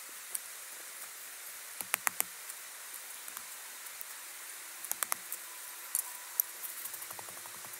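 Small shovel scooping loose soil and tipping it around a stone fire pit: several short clusters of scrapes and pattering clicks of earth and grit landing on stones.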